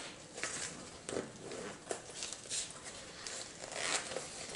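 A padded fabric carrying case being opened and handled: a run of short, irregular rustles and scrapes as its lid is lifted.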